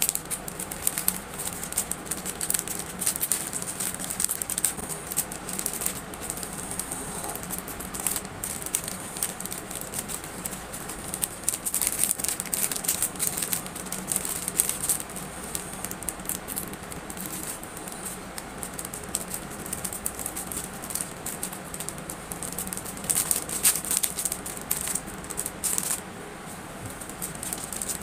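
Small items and packaging being handled while an order is packed: a steady stream of irregular crinkles, clicks and light rattles, busier in two stretches.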